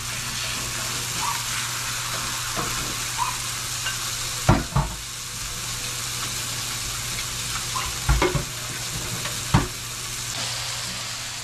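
Chicken fillets sizzling steadily in a hot skillet, with a few sharp knocks, the loudest about four and a half seconds in and two more near the end.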